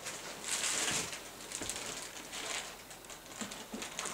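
A clear plastic bag crinkling and rustling as it is carried and handled, in a run of irregular crackles, loudest about a second in.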